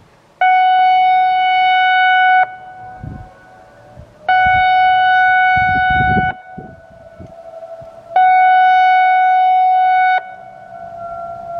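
I-Force electronic outdoor warning siren sounding three loud steady tone blasts, each about two seconds long and about two seconds apart. A fainter siren tone rises slowly in pitch in the gaps between the blasts.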